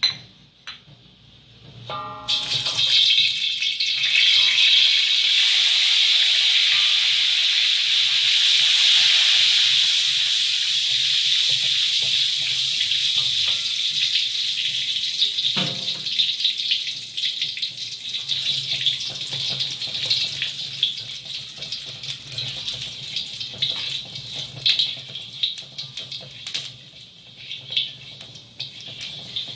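Whole spices (cumin, fennel, fenugreek and mustard seeds) frying in hot oil in a wok: a loud sizzle breaks out suddenly about two seconds in, then slowly eases into a lighter sizzle with scattered crackling pops.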